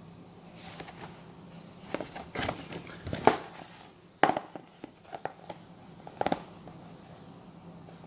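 Paper pamphlet being unfolded and turned over by hand: irregular rustling and crinkling of the paper, with a few sharp snaps of the sheet, the loudest about three and four seconds in.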